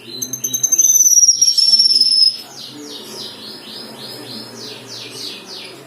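Cucak kinoi (cungkok) songbird singing a fast string of short downward-slurred chirps, about four or five a second. In the first two seconds a loud, thin, high whistle slides slowly down over the chirps and then stops abruptly.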